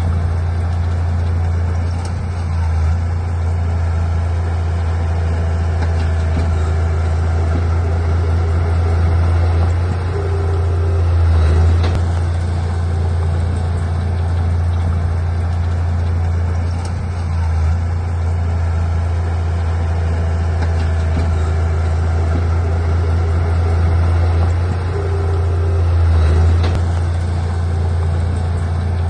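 Heavy earthmoving machine's diesel engine running steadily with a deep hum, swelling briefly a few times as it takes load.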